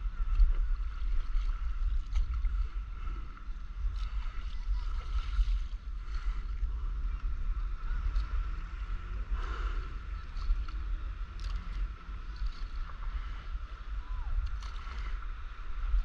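Wind buffeting the microphone as a steady low rumble, over faint lapping and splashing of calm sea water around a paddleboard. A thin steady high tone runs under it.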